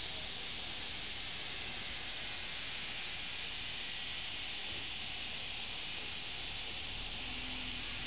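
A chorus of cicadas singing in the surrounding trees: a steady, high, shrill hiss with no break, easing slightly at its top edge near the end.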